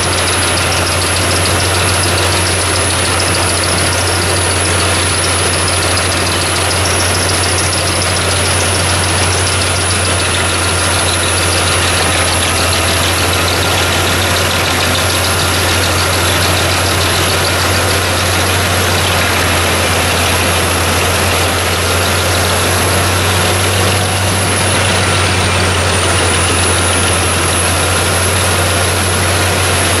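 850 hp Albach Diamant 2000 wood chipper running at a steady speed, a constant heavy drone with a thin high whine above it that dips briefly near the end.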